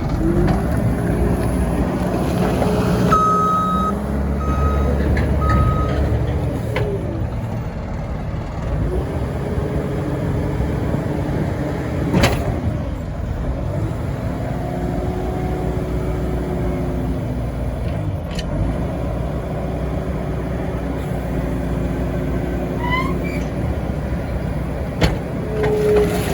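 Case SR210B skid steer loader's diesel engine running, its pitch rising and falling several times as the throttle is opened and eased off. Three short high beeps sound a few seconds in, with a few sharp knocks later on.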